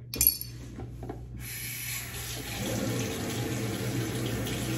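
A bathroom sink tap turned on and running steadily, with water flowing over a face razor to wet it; the flow starts about a second and a half in, after a brief sound.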